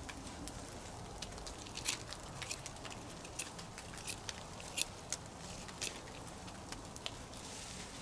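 Small campfire of sticks crackling: scattered, irregular sharp pops and snaps over a faint steady hiss.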